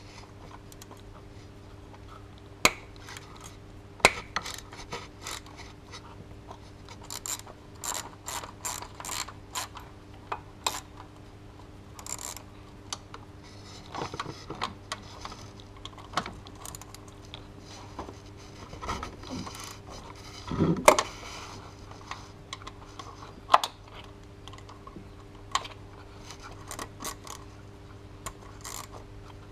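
Hand ratchet clicking in short runs as a socket turns the serpentine belt tensioner bolts, with a few sharp metal clinks of socket and extension against the bolts; the loudest clink comes about two-thirds of the way in.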